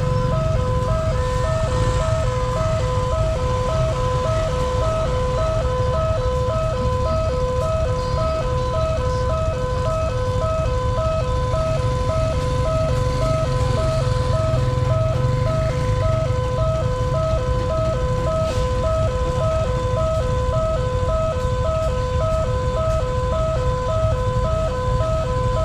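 Railway level-crossing siren sounding its fast-tempo two-tone alarm, a lower and a higher pitch alternating rapidly and evenly without a break, the warning that a train is approaching. A steady low rumble runs underneath.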